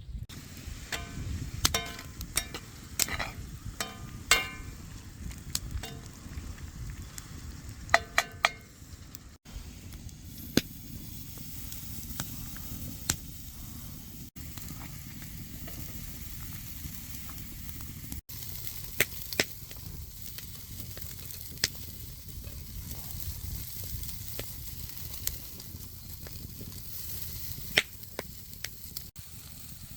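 Food sizzling in a pan over a campfire, a steady frying hiss. A metal utensil clinks against the pan several times in the first few seconds and again about eight seconds in, with scattered sharp ticks later.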